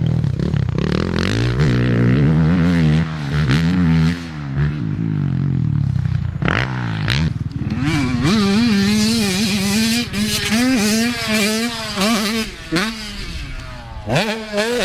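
Motocross dirt bike engines revving hard and backing off over and over, the pitch climbing and dropping with each twist of the throttle as the bikes ride the track's jumps and turns.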